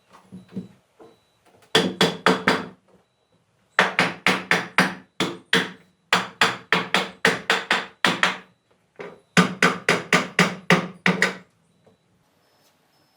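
Hammer blows in four quick runs, about four to five strikes a second, with short pauses between runs and a ringing note on each strike.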